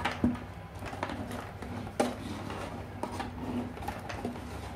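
Black sleeved power-supply cables and their plastic connectors rustling and bumping as they are handled and shifted on a table, with a couple of sharper knocks, about a quarter second in and again at two seconds.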